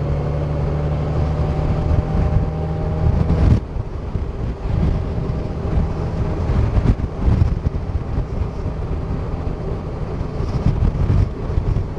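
A 2023 Honda Gold Wing's 1833 cc flat-six engine running steadily under way, with wind and road noise on the microphone. About three and a half seconds in, the steady engine note drops away and rougher, gusting wind noise takes over.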